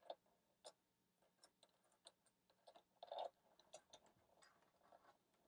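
Near silence with faint, scattered clicks and taps as multimeter test probes are handled and pressed against an electronics kit's spring terminals, with a short cluster of them about three seconds in.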